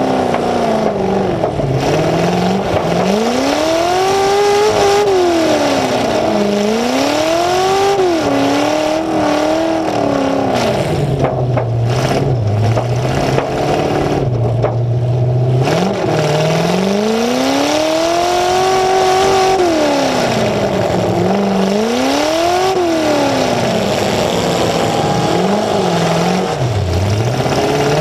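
Full-size demolition derby car's engine, loud through two open exhaust stacks sticking up through the hood, revving up and dropping back again and again as it drives. It settles to a low idle for a few seconds about halfway through.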